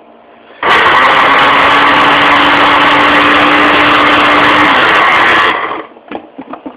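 Rival countertop blender running at a steady high speed for about five seconds, liquefying a homemade raspberry, olive oil and vinegar salad dressing, then switching off suddenly. A few light clicks follow.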